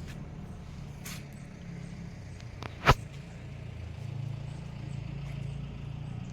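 A motor running with a low steady hum, a little stronger in the second half, and one sharp click about three seconds in.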